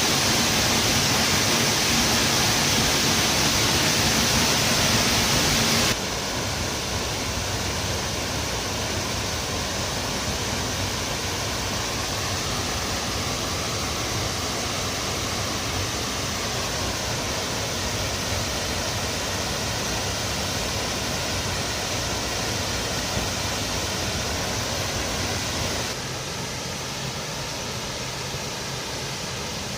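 Sgwd yr Eira waterfall: a steady, loud rush of falling water. The level drops abruptly about six seconds in and again near the end, each time leaving a duller rush.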